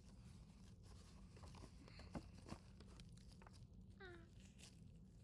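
Near silence with faint soft clicks and squishes of clay slime being worked by a gloved hand. There are two slightly louder clicks about two seconds in and a brief squeak near four seconds.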